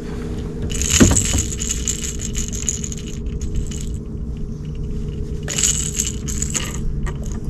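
Light metallic jingling and clicking in two spells, with a sharp knock about a second in, over a steady low hum.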